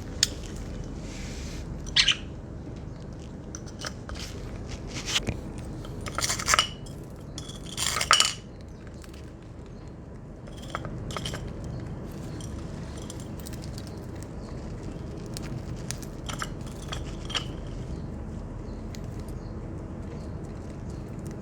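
Budgerigars eating at a food dish: their beaks peck and click against the dish and crack seed in scattered sharp taps, with a few louder bursts in the first half and lighter clicks after.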